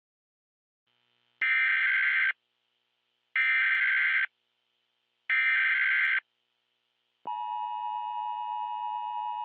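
Emergency Alert System tones: three roughly one-second bursts of digital SAME header data, about two seconds apart, then the steady two-tone EAS attention signal starts about seven seconds in and holds.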